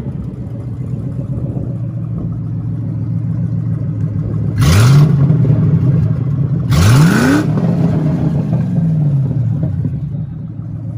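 Ford Mustang GT's 4.6-litre V8 running through an aftermarket exhaust: it idles steadily, then is revved sharply twice, about two seconds apart, beginning a little under halfway in. Each rev sinks back to idle.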